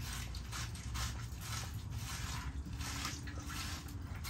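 Hands scrubbing lather into a wet, soapy dog coat: irregular soft squishing swishes, over a low steady hum.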